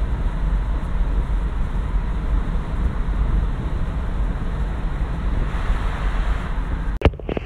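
Steady wind and road noise inside a Jeep Wrangler JLU's cabin at about 80 mph, a loud even rush over a deep rumble. About seven seconds in it cuts off abruptly, followed by a few sharp knocks.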